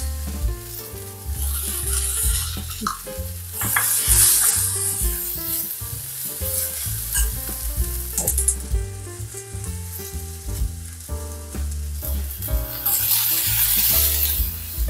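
Sprouted lentils sizzling in hot oil in a stainless steel kadhai while being stirred with a steel spoon. The sizzle grows louder from about a second and a half in to about five seconds, and again near the end.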